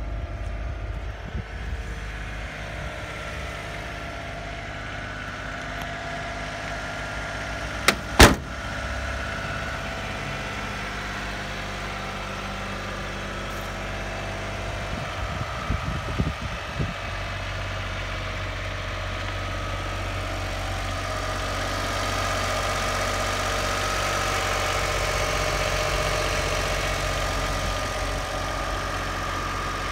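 Honda Acty HA4 kei truck's small three-cylinder engine idling steadily, a little louder in the second half. There are two sharp clicks about eight seconds in and a few knocks around halfway.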